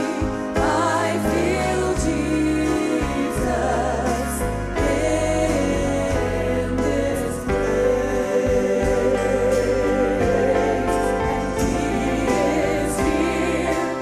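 Live gospel worship song: a woman singing lead into a microphone over a backing choir and band, with long held notes.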